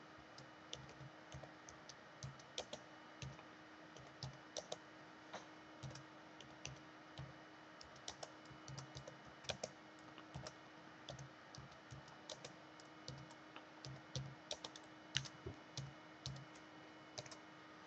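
Typing on a computer keyboard: faint, irregular key clicks with short pauses between words.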